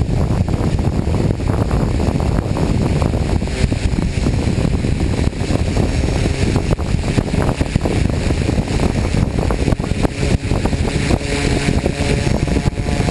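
DJI F550 hexacopter's six motors and 1038 propellers running in flight, under heavy wind buffeting on the microphone. The result is a loud, gusty rumble, with a steadier motor hum coming through near the end.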